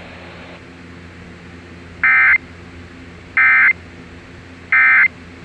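Three short, buzzy Emergency Alert System SAME data bursts about a second apart: the end-of-message code that closes the severe thunderstorm warning broadcast.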